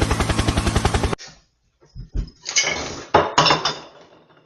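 A fast electronic dance beat cuts off suddenly about a second in. After a short gap come a couple of low knocks and then two short, loud hissing sounds that fade away.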